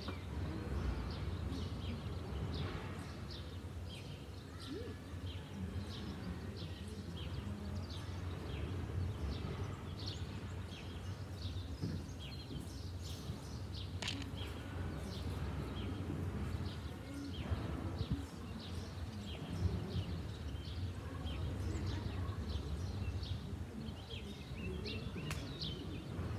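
Small birds chirping and twittering in quick, scattered high calls, over a steady low background rumble.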